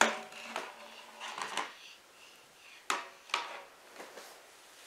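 Hard plastic toy pieces being handled: a few separate clacks and knocks against each other and the wooden floor, the sharpest at the very start and two close together about three seconds in.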